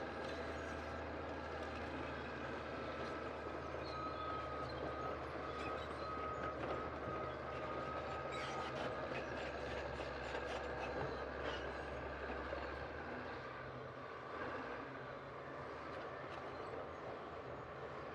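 Heavy construction machine's engine running steadily, with irregular metallic clanks and rattles over it; the low engine hum drops away about thirteen seconds in.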